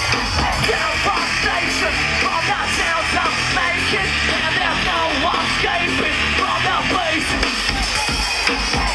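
A live rock band playing loud and without a break, distorted electric guitar over heavy bass and drums.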